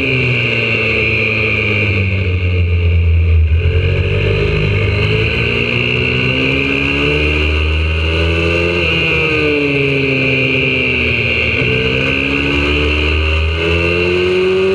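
YCF 125cc four-stroke single-cylinder pit bike engine heard from on board at speed: the revs drop for the first few seconds, climb steadily, fall away again about nine seconds in, then climb once more and ease off near the end, rising and falling with the corners.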